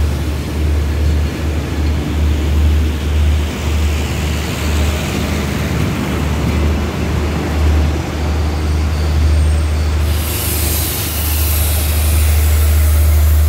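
Express passenger train at a station platform: a steady low rumble all through, and about ten seconds in a loud hiss of air starts and carries on.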